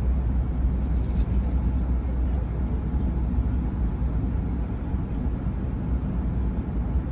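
Steady low rumble of an Airbus A380's cabin noise, engines and airflow heard from inside the cabin, with a few faint clicks.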